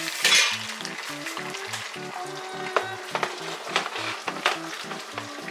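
Oil sizzling and crackling steadily as panko-breaded rolls deep-fry in a small pot, with a louder surge of hiss just after the start and several sharp pops and clicks toward the middle.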